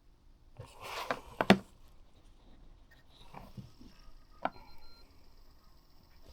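A few sharp clicks and knocks over faint hiss, typical of buttons being pressed on a Ford 6000 CD factory car radio while switching from a talk station to music.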